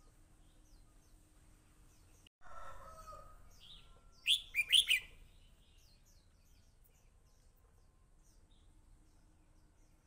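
Red-whiskered bulbul singing one short, loud phrase of quick notes about halfway through, over faint continual chirping of small birds. Just before it, after a brief gap in the sound, comes a lower call about a second long.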